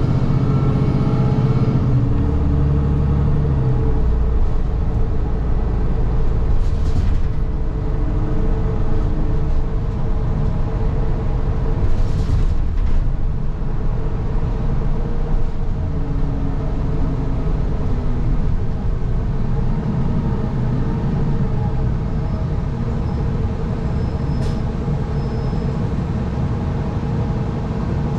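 Inside a moving city transit bus: steady engine and road rumble. The engine pitch shifts in the first few seconds, two brief hisses come through in the first half, and a few faint high beeps sound near the end.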